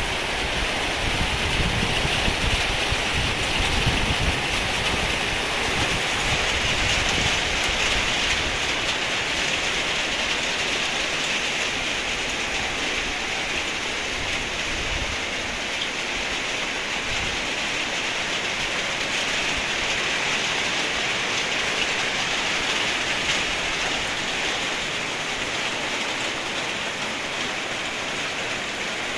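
Steady hiss of rain falling on floodwater, with extra low rumble in roughly the first several seconds.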